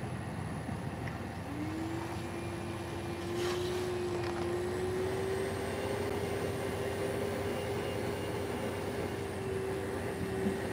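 A steady engine drone: one held hum that starts about a second and a half in and creeps slightly up in pitch, over outdoor background hiss.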